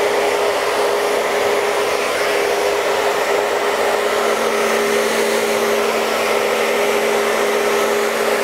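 Hand-held hair dryer with a diffuser attachment running steadily, a constant motor whine over the noise of the airflow, with a lower hum joining about halfway through.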